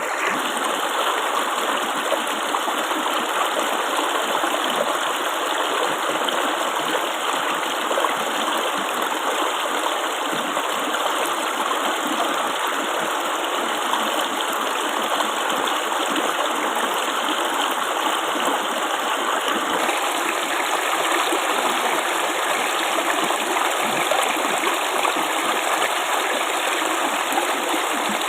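Flowing water babbling steadily.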